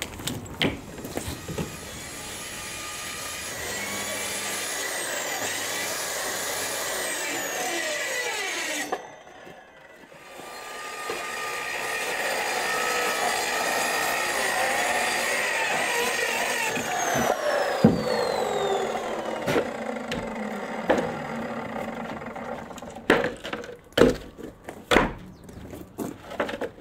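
Handheld circular saw cutting through a large sheet panel in two long passes with a short break between them, its whine rising and falling under load. Near the end come a series of knocks as the cut pieces are handled.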